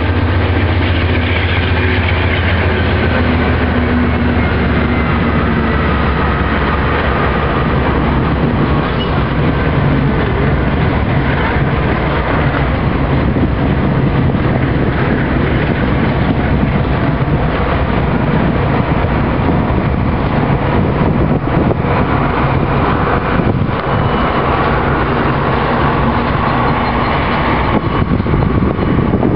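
Canadian Pacific train passing close by: a steady, loud rumble of wheels rolling on the rails. A low diesel locomotive drone is heard in the first few seconds and fades away.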